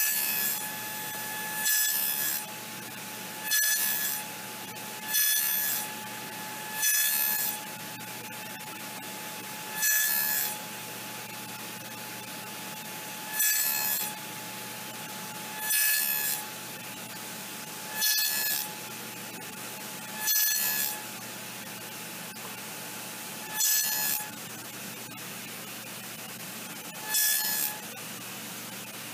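Table saw running steadily, its blade cutting a row of evenly spaced shallow notches into a wooden board. There are eleven short cuts, each about half a second long and coming every two to three seconds, louder than the saw's running hum.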